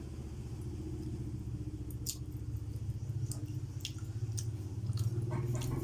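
Close-up eating sounds: chewing with sharp mouth clicks and smacks, more frequent in the second half, over a steady low hum.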